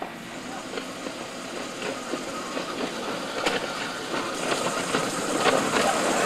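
Quarter-scale model streetcar rolling along backyard rail track, wheels clicking over the rail joints, growing louder as it approaches.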